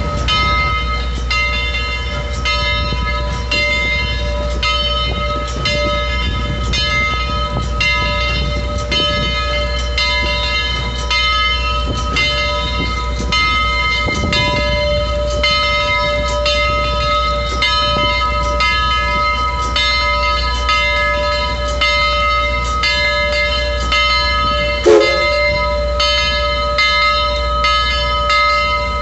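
The bell of steam locomotive Southern Railway No. 4501 ringing in regular strokes while the engine rolls slowly past, with the low rumble of the moving train underneath. A short, falling tone comes near the end.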